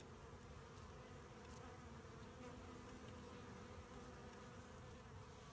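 Faint, steady buzzing of honeybees at a hive's bottom entrance: robber bees crowding the closed-up hive and trying to get in through the bottom screen.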